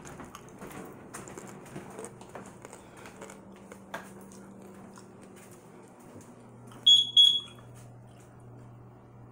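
Two short, high electronic beeps in quick succession about seven seconds in, the loudest sounds here, over faint handling rustles and a low steady hum.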